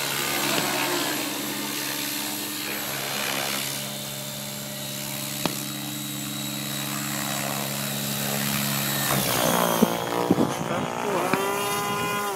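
Align T-Rex 700 electric RC helicopter flying: a steady drone from its main rotor with a high whine from the electric motor and gears. There is a single sharp click about five and a half seconds in, and the steady drone breaks off about nine seconds in, giving way to irregular, changing sounds.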